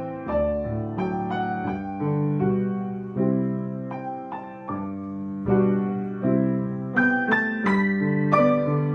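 Piano playing a piece of struck chords under a melody, with brighter, higher notes coming in about seven seconds in.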